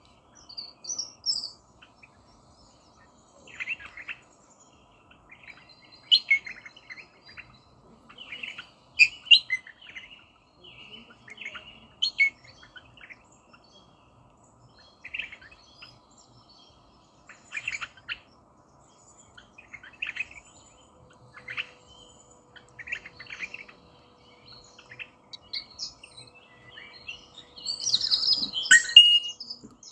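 Rosella calling: short, sharp chattering calls that come in small clusters every two to three seconds, with a louder, busier burst of calls near the end.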